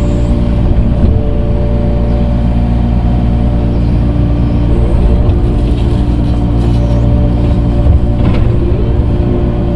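Tractor engine running steadily under load while the front loader works dirt, with a couple of short knocks, about one second in and again near the end.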